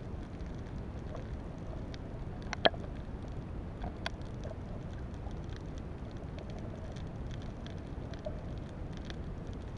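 Underwater ambience: a steady low rush with faint crackling clicks scattered through it, and one sharper click about two and a half seconds in.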